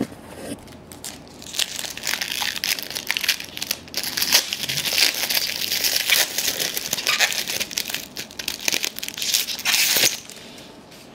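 Trading-card pack wrapper crinkling and tearing as a pack is opened by hand. It is a dense crackle that starts about a second and a half in and stops abruptly near ten seconds.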